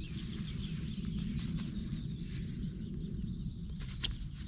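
Small woodland birds chirping and trilling in quick, overlapping phrases over a steady low rumble, with one sharp click about four seconds in.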